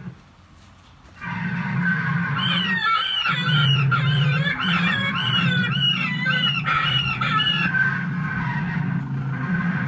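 Animatronic raptor dinosaur's speaker playing its sound effect: a low growl starts about a second in, and a rapid run of high chirping squawks joins from a few seconds in and stops near the end.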